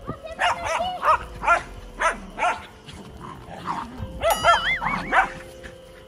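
Small white dog barking in a fast series of short, sharp barks, with a second quick flurry of barks about four seconds in.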